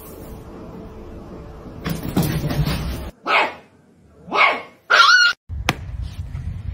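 A puppy barking: three short, high yips about a second apart, the last the loudest.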